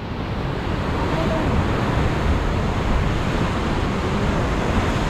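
Steady rush of sea surf breaking on the rocks, mixed with wind noise on the microphone.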